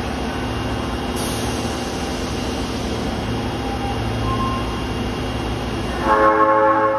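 Osaka Metro Tanimachi Line train running into an underground station, a steady rumble of wheels and motors echoing off the platform. About six seconds in, a louder held tone sounds for over a second.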